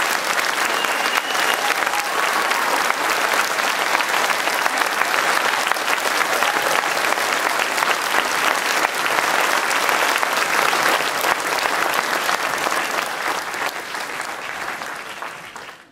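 Audience applauding, a dense, steady clatter of many hands clapping that fades away over the last couple of seconds.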